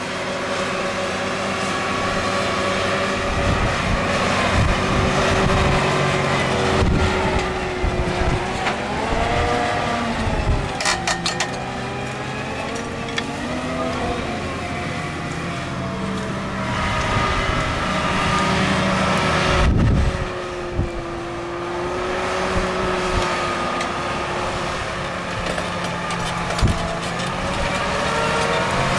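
John Deere 7280R tractor's diesel engine running steadily under load while pulling a seven-furrow plough. Its pitch sags and recovers about a third of the way in, and there are a few brief knocks.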